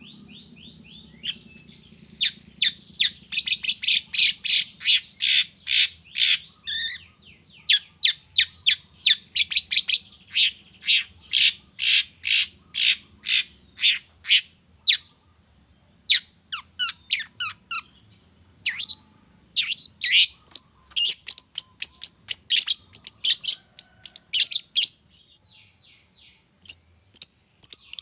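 Long-tailed shrike (cendet) calling: a fast run of sharp, repeated high notes, about two or three a second, then more varied calls after about 16 s, with a short break near the end.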